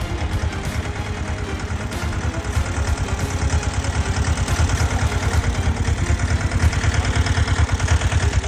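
Single-cylinder diesel engine of a patpat farm vehicle chugging in a fast, even beat, with some clatter.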